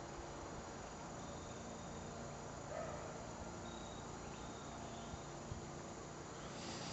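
Faint steady chorus of insects, with short high tones coming and going, and a light tick about five and a half seconds in.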